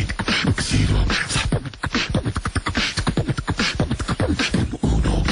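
A human voice beatboxing: a fast, rhythmic run of vocal percussion, with many quick clicks and bass hits.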